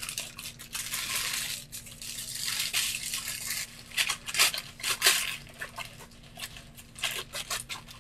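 Plastic crinkling and rustling with a few light clicks as a plastic piping bag is handled and filled with white resin.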